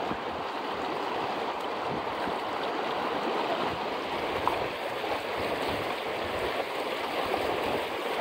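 Fast, shallow mountain stream rushing over stones, a steady water noise.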